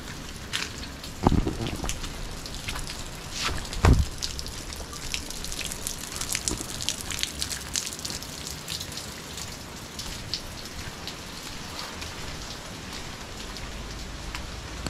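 Tall wet grass brushing and crackling against the camera as someone pushes through it on foot: a steady rustle full of irregular small ticks, with two dull thuds about a second and four seconds in.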